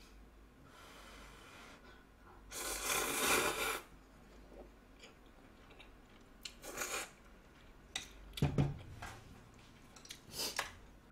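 A person slurping instant ramyeon noodles: one long, loud slurp about two and a half seconds in, then chewing and shorter slurps. A dull thump comes about eight and a half seconds in.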